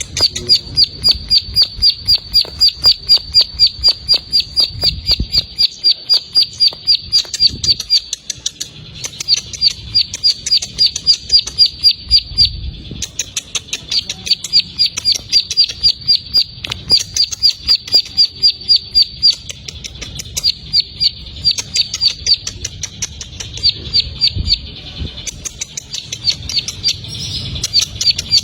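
Plain prinia (ciblek sawah) singing: a sharp, high note repeated about five times a second in long runs, broken by short pauses.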